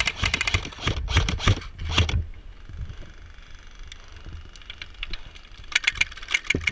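Airsoft rifles firing rapid strings of shots, a fast run of sharp clicks. The firing breaks off about two seconds in and starts up again near the end.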